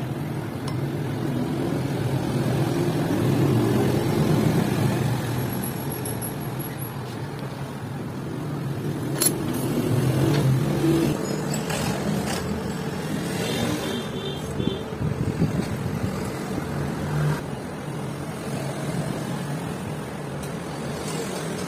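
A steady low rumble of background noise, like distant road traffic, with a sharp metallic click about nine seconds in and a few lighter taps and ticks a few seconds later, as the steel handle and handwheel are handled.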